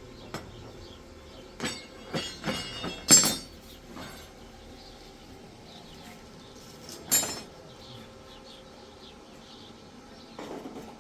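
Hard objects knocking and clinking together in an irregular run of sharp, ringing strikes, the loudest about three seconds in, with a single strike again near seven seconds.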